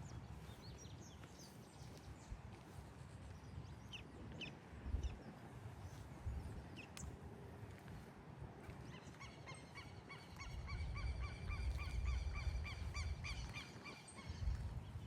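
A bird calling in a rapid run of repeated harsh notes, several a second, for about five seconds in the second half, with scattered short chirps earlier and a low rumble underneath.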